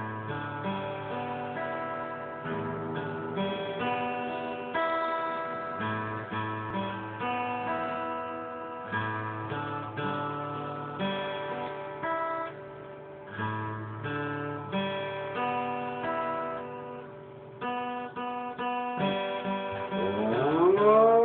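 A guitar being played, a run of picked notes and chords. Near the end an Afghan hound starts to howl along, its voice gliding upward in pitch and then holding.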